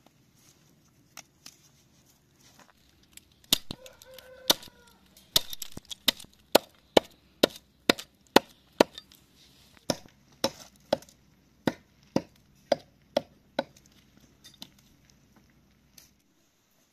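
A small hatchet chopping into a bound bundle of dried plant stems resting on a wooden log, trimming the end of a homemade broom. It makes a string of sharp strikes, about two a second, starting a few seconds in, with a short pause midway and a few lighter strikes near the end.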